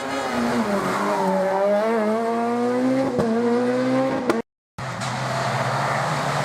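Rally car engine under hard acceleration: its pitch dips, then climbs steadily for a couple of seconds. The sound cuts off abruptly about four and a half seconds in and returns as a car engine holding steady revs, with a hissing noise that may be tyre squeal.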